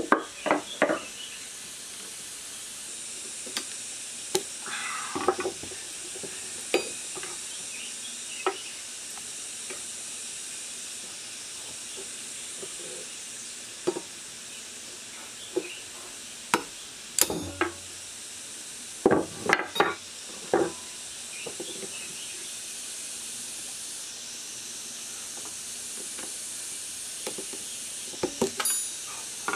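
Scattered short clinks and knocks of metal parts and tools being handled, irregular and in small clusters, over a steady faint hiss.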